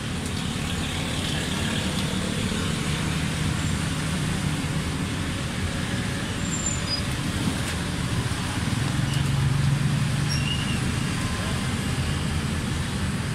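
Steady low rumble of motor vehicles running nearby, swelling slightly about two-thirds of the way through, with a few faint clicks.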